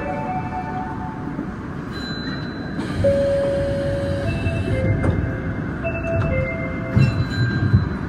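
Osaka Metro 30000 series subway train running through a tunnel: a steady low rumble of wheels on rails, with brief high squealing tones that come and go several times.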